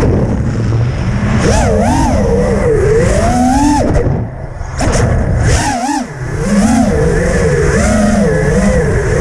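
FPV quadcopter's electric motors whining, their pitch swinging up and down quickly with the throttle, over wind rumble on the microphone. The motor sound drops away briefly about four seconds in and again around six seconds.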